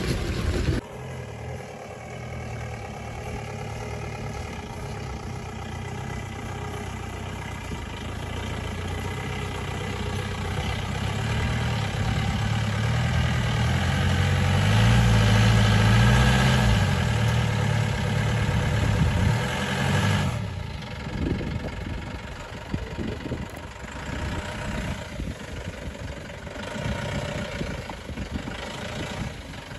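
An off-road SUV's engine working under load as it pushes through deep mud, building up to its loudest about halfway through and then dropping back sharply to a lower, uneven running. Wind on the microphone is heard for a moment at the very start.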